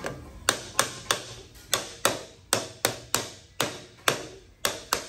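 Small hammer tapping on the capped end of a 3-inch PVC sewer pipe used as a seal driver, about three sharp strikes a second with short ringing. The strikes are driving a new factory GM seal into the transfer case's input seal bore, tapped gently around to seat it straight.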